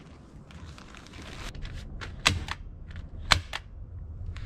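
Two loud, sharp cracks about a second apart, surrounded by lighter clicks and knocks, from work on wooden boards.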